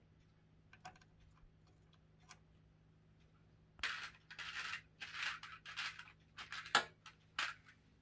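Handling noise at an open PC case: a few faint clicks, then a run of short scraping and rustling bursts with one sharp knock near the end.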